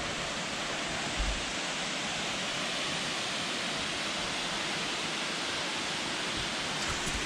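Waterfall rushing: a steady, even roar of falling water, with a brief low thump about a second in.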